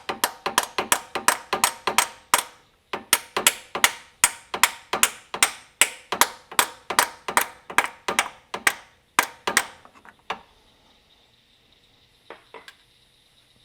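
Ball peen hammer tapping on the end of a steel injector keeper, ringing metallic strikes at about three a second, jacking the Duramax LML diesel injector up out of its bore. The tapping pauses briefly a couple of seconds in and stops about ten seconds in, followed by a few faint knocks.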